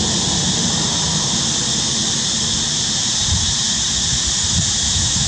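Steady, loud outdoor background hiss concentrated high in pitch, with an uneven low rumble underneath.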